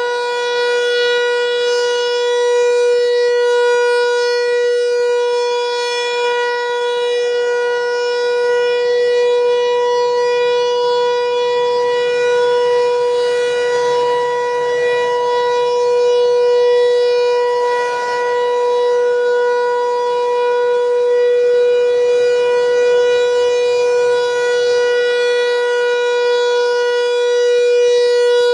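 Federal Signal 508 single-tone electromechanical warning siren sounding a steady test tone at full speed, holding one pitch while its loudness swells and fades gently every few seconds as the rotating horn sweeps.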